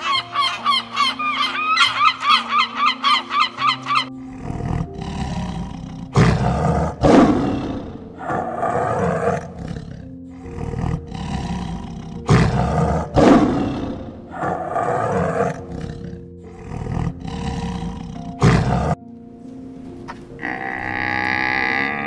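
Tiger roaring and growling in a string of loud rough bursts, after about four seconds of rapid repeated honking bird calls. A drawn-out animal call starts near the end, and background music plays throughout.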